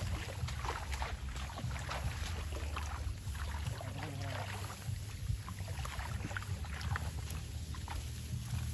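Wind rumbling on the microphone, with rice plants and tall grass rustling and brushing past as someone walks through the paddy.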